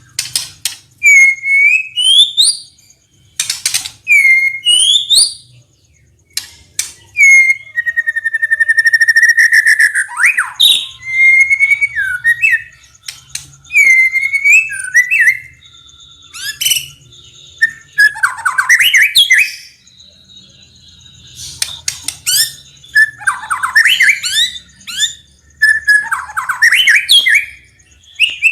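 White-rumped shama singing a loud, varied song: clear whistled notes, rising and falling glides, rapid trills and sharp clicking notes, broken by short pauses.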